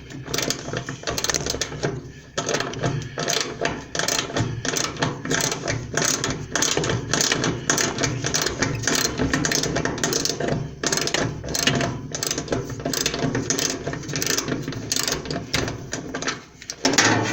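Ratchet wrench clicking rapidly and without let-up while loosening the 10 mm nut that holds a clothes dryer's belt tensioner.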